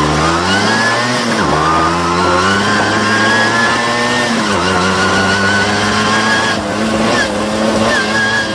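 Tomos 14M motorcycle's small two-stroke engine pulling hard under way. Its pitch climbs, drops sharply about a second in and again around four and a half seconds as it changes up a gear, then holds high and steady.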